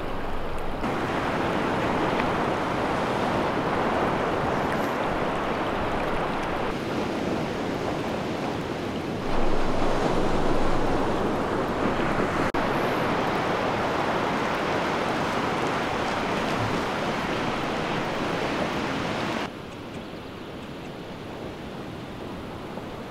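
Ocean surf washing onto a sandy beach, a steady rush of noise. It jumps in level at several cuts: louder from about nine seconds in, then quieter for the last few seconds.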